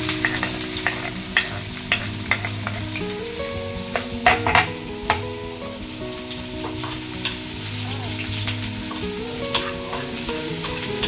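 Chopped onions sizzling in hot oil in a frying pan, with a steel spoon clicking and scraping against the pan as they are tipped in and stirred, the loudest clicks coming about four to five seconds in.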